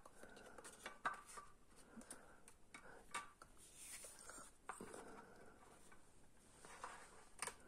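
Faint scattered light clicks and rustling of dry lasagne sheets being laid into a glass baking dish.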